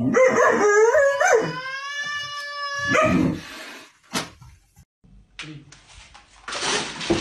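A dog's long, high howling whine, wavering in pitch at first and then held steady, lasting about three seconds and ending in a short harsh burst. A sharp click follows about a second later. Near the end come rustling noises.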